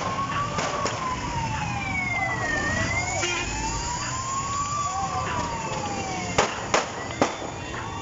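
Police siren wailing, its pitch slowly rising and falling, over low engine and road rumble from moving motorcycles. Three sharp knocks come near the end.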